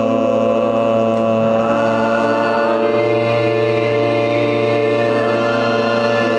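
A hall of people chanting a long held syllable in unison over background music, a man's voice leading through a microphone. It is one continuous drone whose pitch shifts slightly about three seconds in.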